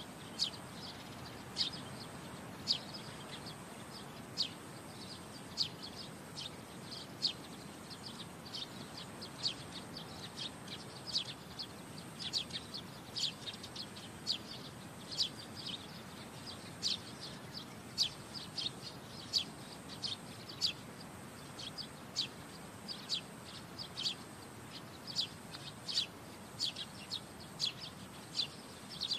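Small birds chirping: short, high chirps repeated about once or twice a second, coming from several birds around.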